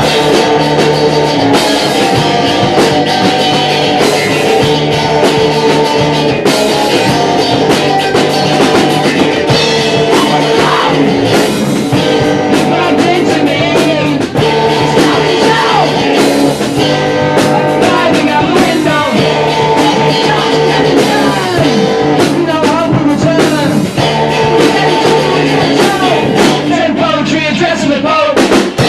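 A small rock band playing live, with guitar and drum kit and a voice singing over them, in an out-of-tune performance.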